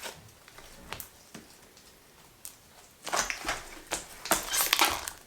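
Slime being worked by hand: a few faint sticky clicks, then from about three seconds in a louder run of crackling, squelching pops as the slime is popped.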